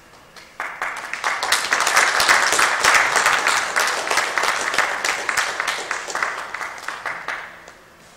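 Audience applauding, the clapping starting suddenly about half a second in, swelling, then dying away near the end.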